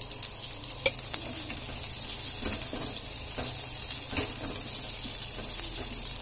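Cubed capsicum sautéing in hot oil in a pan: a steady sizzle with a few clicks of a spatula against the pan, the sharpest about a second in.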